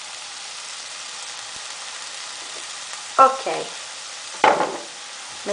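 Sliced red onions sizzling in hot olive oil in a frying pan, a steady hiss, with balsamic vinegar just poured over them.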